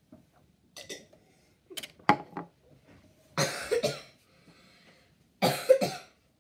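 A person coughing: a few short coughs in the first couple of seconds, then two longer coughing fits about three and a half and five and a half seconds in.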